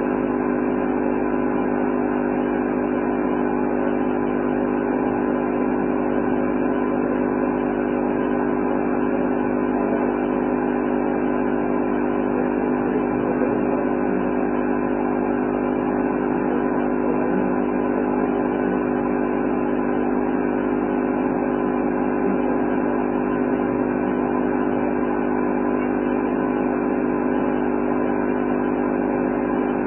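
A steady, unchanging hum made of several held tones, with no speech.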